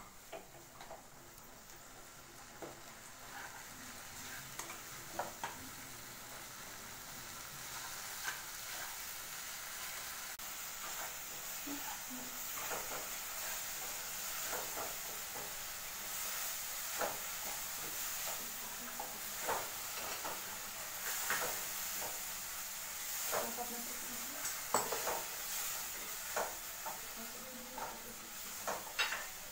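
Onion-tomato masala with spice powders and ginger-garlic paste sizzling in a non-stick kadhai while a spatula stirs it, with irregular scraping taps of the spatula against the pan. The sizzle grows gradually louder over the first several seconds.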